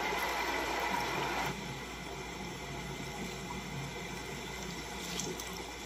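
A steady, watery rushing noise that drops in level about a second and a half in.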